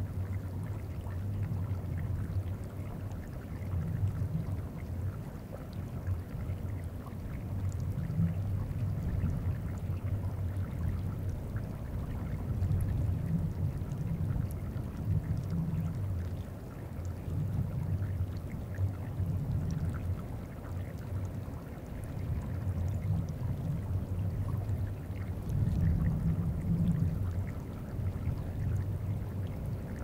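Deep, low rumble of a moving glacier, picked up by geophones in the ice, swelling and fading every few seconds. Over it lies the faint trickle and ticking of the glacier's melting surface.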